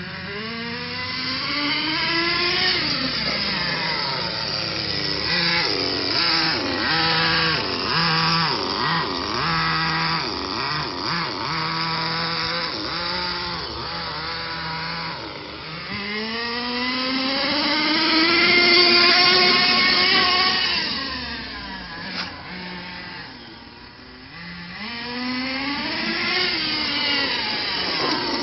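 Redcat Volcano S30 RC truck's small nitro engine, freshly fitted with new gears and a new gasket, revving up and down again and again as the truck is driven, its pitch rising and falling. A run of quick throttle blips comes in the middle, and near the end it drops away briefly before revving up again.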